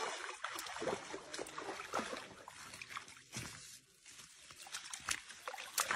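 Wet cast net hauled out of shallow water and dragged over dead leaves: water trickling and splashing off the mesh, with scattered crackles and clicks as the net and fish land on the leaves.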